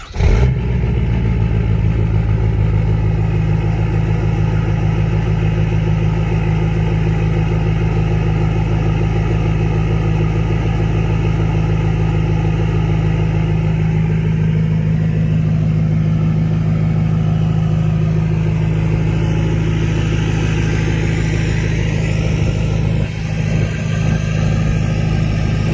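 2017 Ford 6.7 L Power Stroke V8 turbodiesel with a compound turbo setup (BorgWarner S475 over the stock turbo), heard at the tailpipe. It fires right at the start on a cold start and settles into a steady idle.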